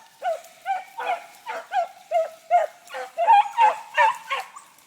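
Rabbit-running dogs baying as they trail a rabbit's scent: a quick string of short, high yelps, about three a second, with more than one voice overlapping.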